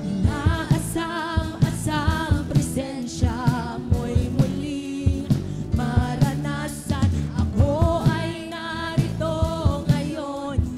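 A live worship band playing a Tagalog praise song: several women singing together into microphones over a steady drum beat, acoustic and electric guitars, bass and keyboard.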